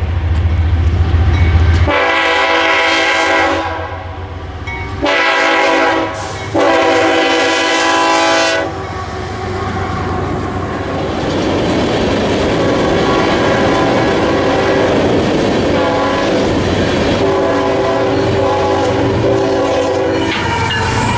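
Nathan AirChime K5HL five-chime locomotive horn sounding three blasts in the first nine seconds, the middle one short, over a low engine rumble at the start. Then a steady rolling noise from the passing train, with a fainter horn blast near the end.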